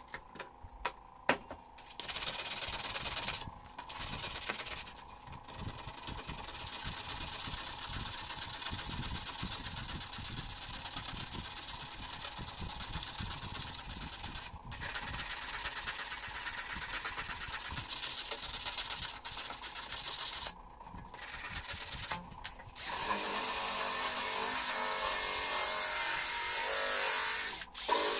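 A power tool runs in stretches, stopping briefly several times. About 23 seconds in, a louder, steady run starts: a drill spinning a wire cup brush against the steel tang of a knife blade.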